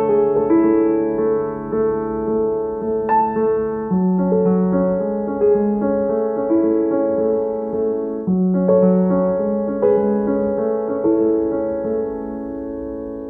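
Slow, gentle background piano music: sustained notes and chords changing every second or so, getting quieter near the end.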